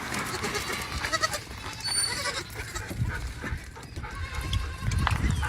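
Goats bleating, with short calls about a second and two seconds in, over a steady low rumble.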